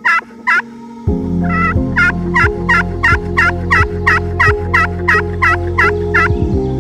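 Wild turkey calling in a long, even series of short yelping notes, about three a second, after two single notes at the start. Soft background music with sustained low chords comes in about a second in.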